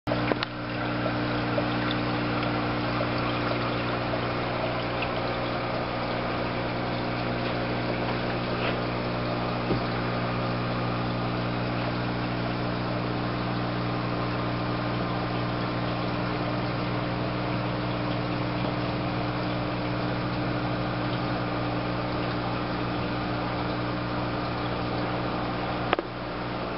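Aquarium pump equipment humming steadily, with a low electric hum under the constant fizz and trickle of water and air bubbles rising through the tank.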